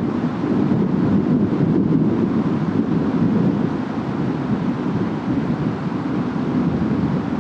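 Distant thunderstorm: a low, steady rumble of wind and rolling thunder that eases slightly near the end.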